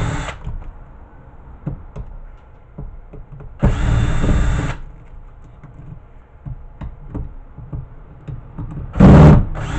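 Cordless drill-driver running in short spurts of about a second each, backing screws out of a VHS player's tape-deck chassis, with small clicks of parts being handled in between. One run ends just after the start, another comes about four seconds in, and the loudest starts near the end.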